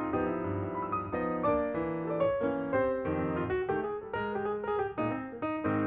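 Background music: a light piano melody with accompaniment.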